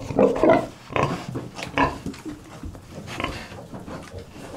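Pigs, a sow and her two-week-old piglets, making short grunts: several close together in the first second or so, then fewer and fainter ones.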